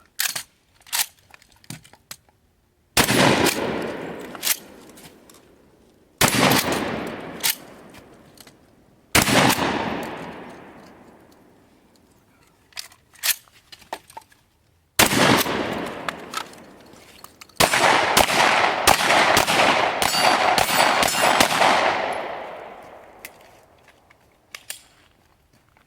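Gunshots fired in a drill: single loud shots about three seconds apart, each trailing off over a couple of seconds, then a rapid string of shots near the end. Lighter clicks and knocks come between the shots.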